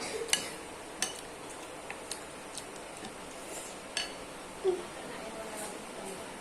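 Scattered light clicks of cutlery against a bowl or plate while eating noodles and rice, a few separate taps over a faint steady hiss.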